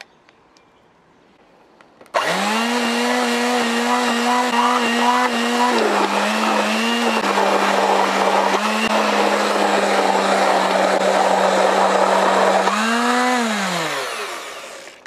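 Electric immersion (stick) blender starting up about two seconds in and whirring steadily as it purées beetroot into thick chickpea hummus. Its pitch dips a little partway through, rises briefly, then winds down near the end.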